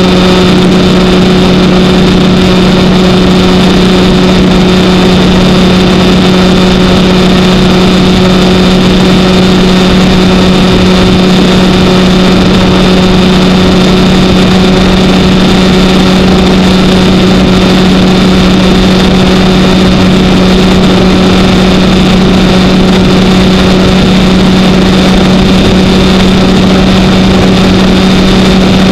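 Kawasaki Ninja 1000's inline-four engine running at a steady cruising speed: one constant drone that neither rises nor falls, over a steady rush of wind and road noise.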